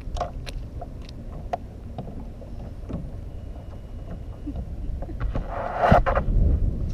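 Water lapping against a plastic kayak hull over a steady low rumble of wind on the microphone, with scattered light clicks and a louder rush with a sharp knock about six seconds in.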